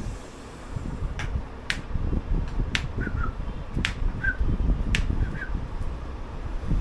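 Sharp clicks, about six spaced unevenly over some four seconds, with short faint high chirps after a few of them, over a steady low rumble.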